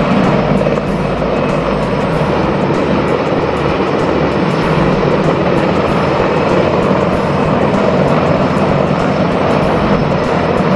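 Mil Mi-26 heavy-lift helicopter hovering, its rotor and twin turboshaft engines making a loud, steady noise.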